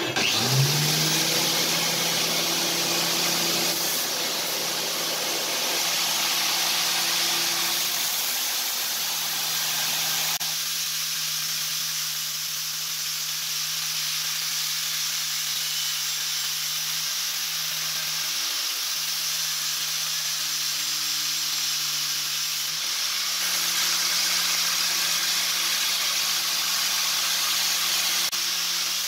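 Belt grinder starting up, its motor tone rising to a steady pitch within the first second, then running with a steady hiss as steel from an old circular saw blade is ground against the abrasive belt.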